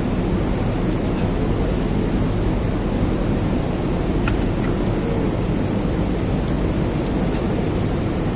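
Steady machinery running: a constant low hum under an even hiss, with a few faint ticks about four seconds in.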